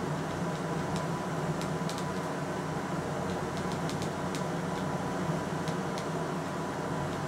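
A steady mechanical hum, like a fan or air-conditioning unit running in a small room, with a few faint light clicks between about one and four seconds in.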